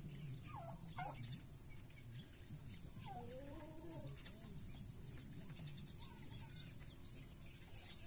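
Turkeys and other farm fowl calling: short falling calls in the first second and a longer, drawn-out call around the middle, over a steady run of short high chirps about twice a second.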